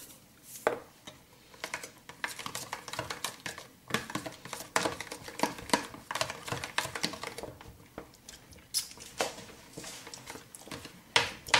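Metal spoon stirring and scraping a thick creamy mixture in a plastic tub: irregular clicks and scrapes.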